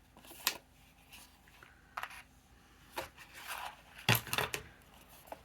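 Paper and small scrapbook embellishments being handled on a desk: several light taps and clicks with short rustles and scrapes, the loudest tap about four seconds in.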